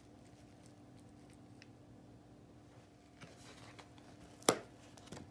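Quiet handling noise: faint rustling, then one sharp knock or click about four and a half seconds in, followed by a smaller one.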